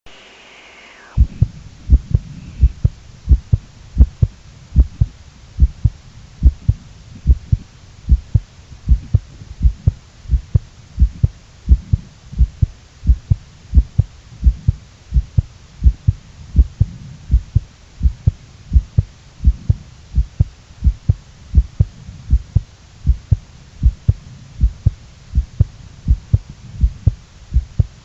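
Human heartbeat recorded close up: steady deep double thumps (lub-dub), a little faster than one beat a second. A short rustle comes just before the first beat, about a second in.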